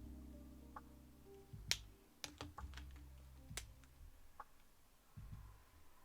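Soft background music with sustained low notes, over which a handful of sharp, separate clicks sound, the loudest about a second and a half in and again about two seconds later.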